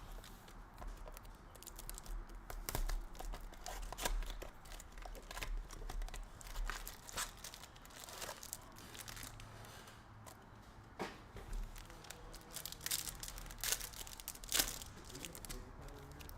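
Sealed trading-card packs being torn open and their wrappers crinkled, in many short irregular rustles and rips.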